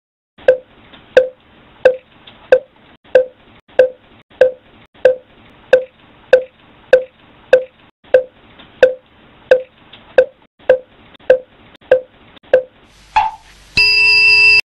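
Steady hollow wooden knocks of a temple wooden fish (mokugyo), about three every two seconds, some twenty in all. Near the end a small bell chimes and rings on. Together they make the cartoon 'thinking' cue that ends with the bell as the idea arrives.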